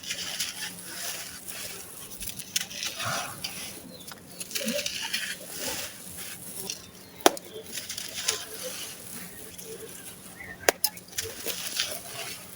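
Dry grey sand-cement crumbling with a gritty, crunchy crackle. Sharp snaps stand out about seven seconds in and again near eleven seconds.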